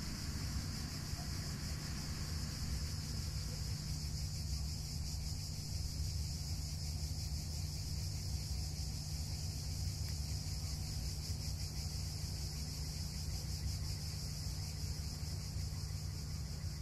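Steady high-pitched insect chorus over a low steady hum.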